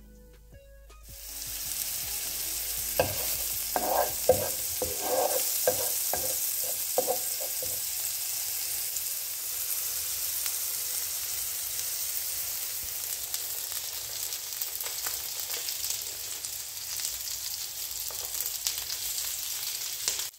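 Chopped garlic and parsley sizzling in butter and olive oil in a frying pan; the frying sets in about a second in and then holds steady. A few sharp knocks against the pan come between about three and seven seconds in.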